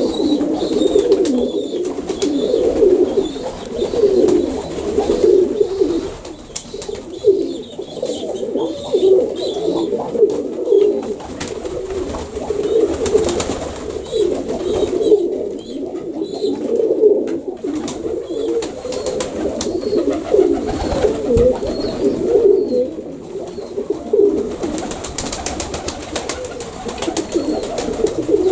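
Many Baku pigeons cooing at once, a dense, continuous overlapping warble, with occasional faint high chirps above it.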